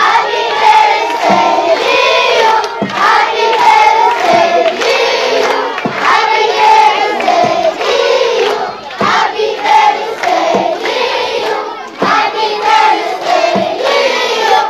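A large group of children singing together in unison, loud and continuous.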